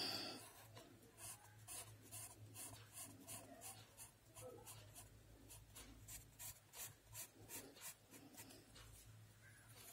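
Faint scratching of a graphite pencil on paper in quick short strokes, about two or three a second, as a small shape is cross-hatched. A brief louder sound right at the start, and a low steady hum underneath.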